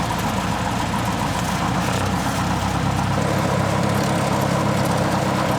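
Cessna 172S's four-cylinder Lycoming engine running steadily, a constant drone with an even rushing noise of air over it.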